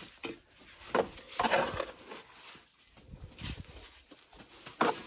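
Trowel scooping and scraping wet mortar in a bucket and pressing it against the stones: about four separate scrapes and knocks.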